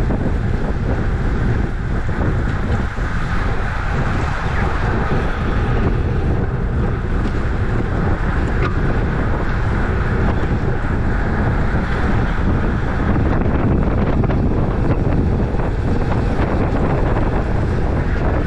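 Wind buffeting the microphone of a moving racing bicycle, with a steady hiss of tyres on wet road.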